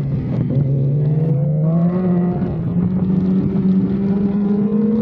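BMW S1000RR superbike's inline-four engine, heard from on board: the revs drop briefly about half a second in, then climb slowly and steadily as the bike accelerates.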